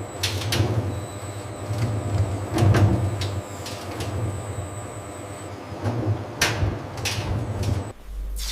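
Machinery running with a pulsing low hum, punctuated by irregular knocks and clatters; it cuts off suddenly near the end.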